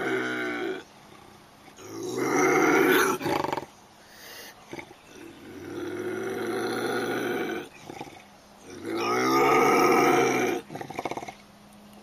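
Bobcat yowling: four long, drawn-out calls, each lasting a second and a half to two seconds, with pauses of one to two seconds between them.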